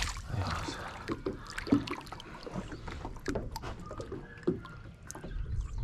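Scattered light clicks and knocks with faint splashing of water, from fishing tackle being handled by the water.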